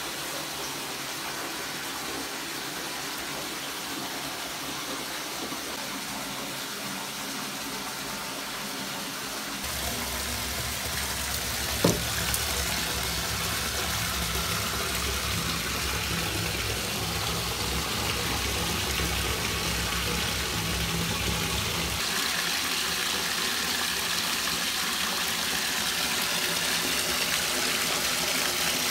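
Bath water hissing and fizzing as a bath bomb dissolves, with a single plop about twelve seconds in. A low hum runs under it for roughly ten seconds after the plop.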